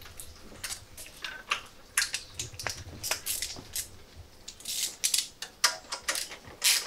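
Scattered light metal clicks, taps and short scrapes as the exhaust hanger bolt, washers and rubber bushes are worked into place by hand, with a socket extension set on the hanger bolt near the end.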